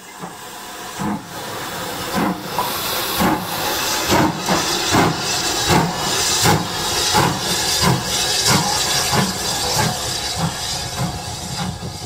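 Steam locomotive working away from a stand: exhaust chuffs over a steady hiss of steam, the beats coming closer together as it gathers speed.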